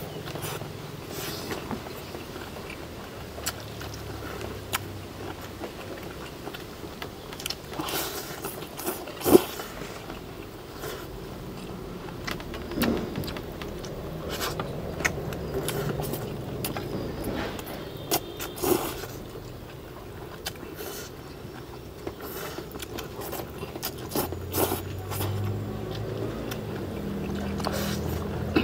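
Two people eating stir-fried noodles fast: chewing, with scattered clinks and scrapes of utensils on plates, and one louder knock about nine seconds in.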